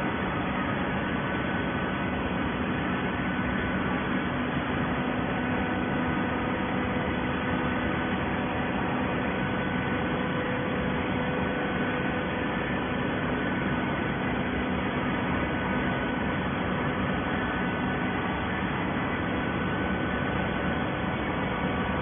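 Automatic horizontal baler running: a constant machine hum from its hydraulic power unit, with a few steady held tones and no distinct strokes or bangs.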